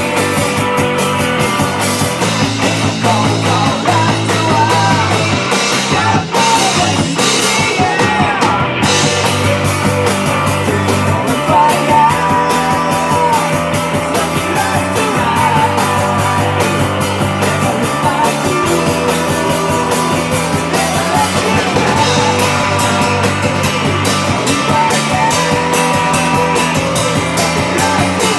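Live rock band playing a song: electric guitar, electric bass and drums, with a male singer.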